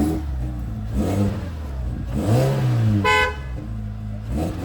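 Car engine running with several short revs that rise and fall, and a short horn toot about three seconds in.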